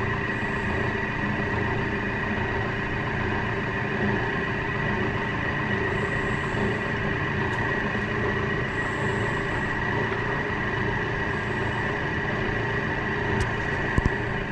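Thermomix TM6 running its cooking cycle at low stirring speed: a steady motor hum with a high whine, unchanging throughout, and a couple of sharp clicks near the end.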